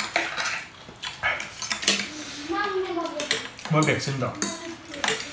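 Metal forks and spoons clinking and scraping on ceramic plates as two people eat noodles, with many short sharp clicks.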